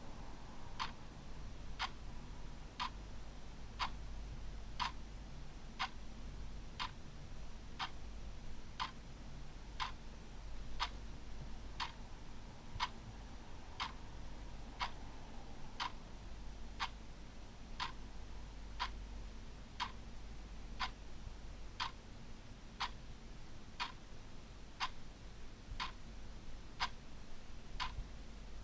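Ticking clock, a steady tick about once a second.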